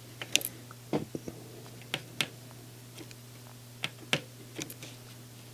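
Hand soldering a replacement surface-mount chip onto a circuit board: about ten small, irregular clicks and ticks as the soldering iron tip and solder wire work along the chip's pins, over a low steady hum.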